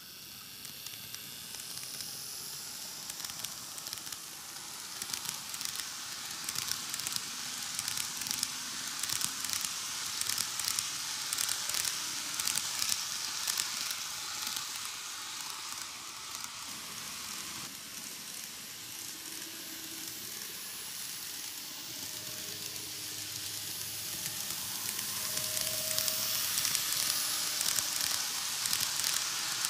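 KATO N-gauge ED79 electric locomotive and its ten blue express coaches running on curved TOMIX superelevated track: a steady hiss of small wheels rolling on the rails, flecked with fine rapid ticking. It grows louder in the first seconds, eases off in the middle and swells again near the end as the train comes round once more.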